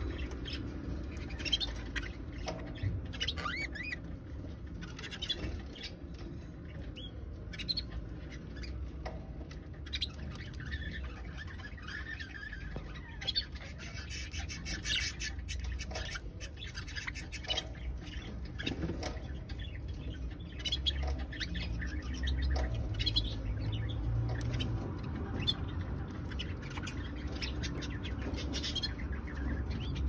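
Budgerigars singing and calling: a continual chatter of short squawks, chirps and warbling notes.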